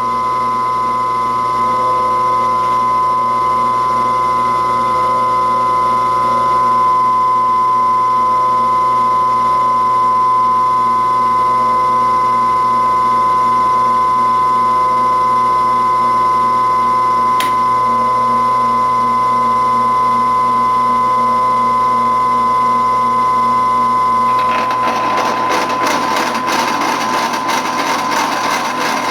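Milling machine running a slitting saw at its slowest spindle speed, 140 rpm, with a steady whine while feeding through steel. About 24 seconds in, the sound turns rougher and scratchier.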